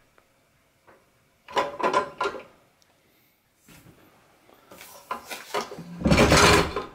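Bowl-lift mechanism of a KitchenAid stand mixer being worked by hand: a short metallic clatter about a second and a half in as the lever moves the bowl-support arms, then rubbing, and a louder knocking near the end as hands grip and shift the metal arms.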